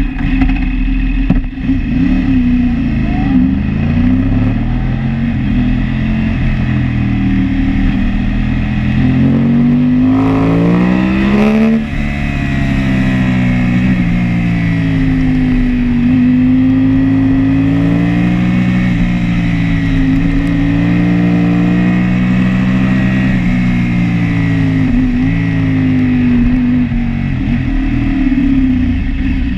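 Sport motorcycle engine heard onboard at racing speed, revving up and down through the corners with gear changes. Its pitch climbs steeply for a few seconds about ten seconds in, then drops sharply.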